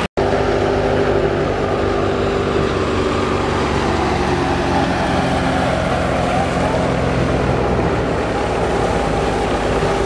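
Tractor-driven wheat thresher running steadily under load, powered by an Al Ghazi tractor's diesel engine: a continuous mechanical drone. The sound drops out for an instant just after the start.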